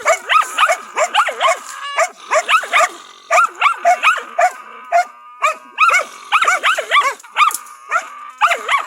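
Hunting dogs barking rapidly and without letup at a cornered raccoon dog, about four to five barks a second with a few short breaks.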